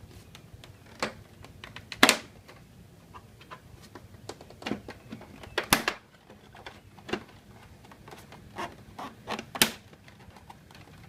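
Plastic dash panel of a Yamaha FJR1300 being pried down off its hooked retaining clips: irregular clicks, knocks and snaps of the plastic, the loudest about two, six and nine and a half seconds in.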